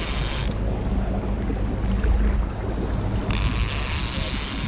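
Boat engine running steadily at trolling speed, a low rumble with a faint hum, with wind buffeting the microphone. Two bursts of high hiss, each about a second and a half long, come at the very start and again near the end.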